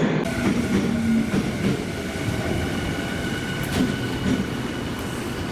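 Electric commuter train moving along a station platform: steady rumble of wheels on rail with a faint steady whine, and a sharp click about four seconds in.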